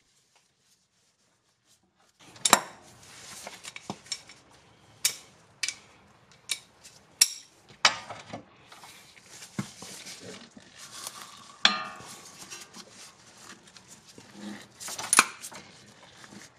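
Sharp metallic clinks and knocks of a breaker bar and 14 mm socket being worked on a seized stabilizer bushing bracket bolt. The socket is pulled off the bar's drive, turned a quarter turn and refitted, and the bolt is loosened a little at a time. The clinks begin about two seconds in and come irregularly, about a dozen of them.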